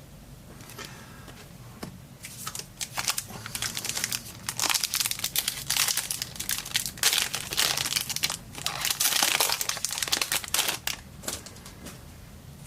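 A foil trading-card pack wrapper being torn open and crinkled: a dense run of crackling that starts about two seconds in and dies away near the end.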